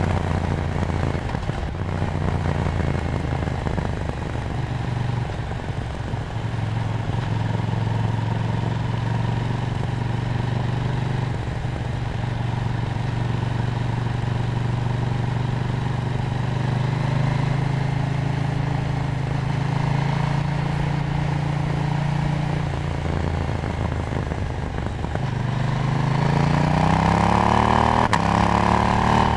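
KTM Duke 790's parallel-twin engine running at a steady cruise with wind noise, then revving up hard under acceleration over the last few seconds, its pitch climbing steadily.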